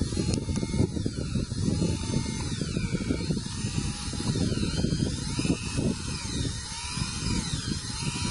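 An 18-volt DeWalt cordless drill on its slowest setting turning a long soil auger into sandy soil in short up-and-down strokes, with the grinding of sand. The motor's pitch rises and falls again and again as the bit digs in and clears.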